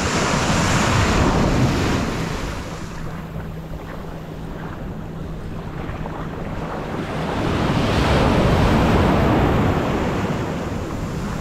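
Shore-break waves breaking and washing in: one at the start, and another swelling to a peak about eight seconds in. Wind buffets the microphone throughout.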